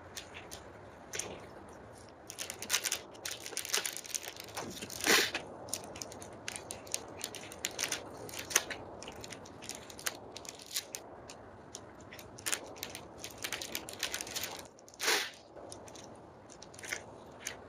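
A person eating close to the microphone: chewing fuet and snacks in a run of irregular crunching, clicking mouth sounds, with a couple of louder bites.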